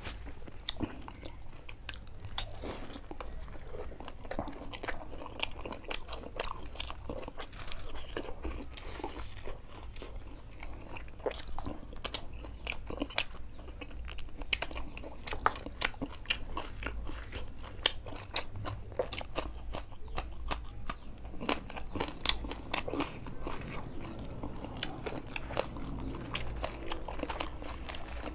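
A man chewing and biting into chicken curry and puri eaten by hand, close to the microphone: a steady run of wet mouth sounds and many small irregular clicks.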